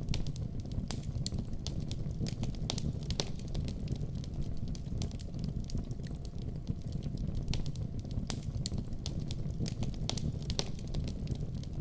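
Wood fire in a fireplace crackling, with frequent sharp irregular pops and snaps over a steady low rumble of the flames.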